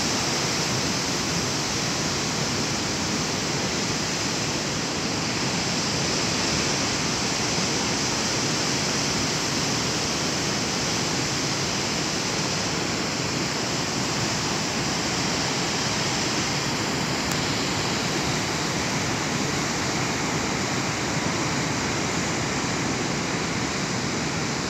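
Ocean surf breaking on a rough sea: a steady, unbroken rush of water with no single wave crash standing out.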